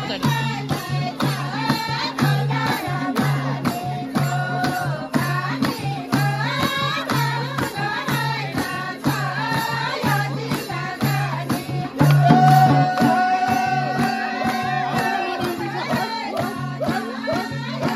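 Nepali folk song: singing over a steady low drone and a quick rattling percussion beat of about three strokes a second. About two-thirds of the way through it gets louder, with a long held sung note.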